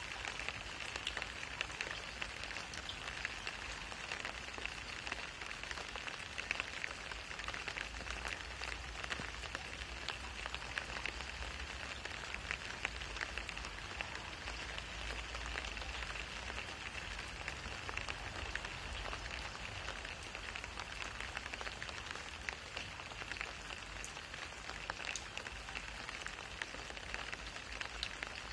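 Steady rain falling on wet asphalt: a constant hiss dense with the ticks of individual drops hitting the water-covered surface, with a low rumble underneath.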